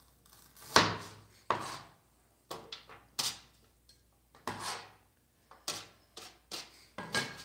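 Cleaver chopping on a cutting board: a dozen or so sharp knocks at an uneven pace.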